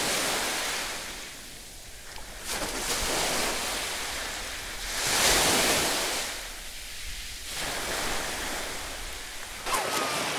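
Small sea waves washing in the shallows, a steady hiss of water that swells and eases several times.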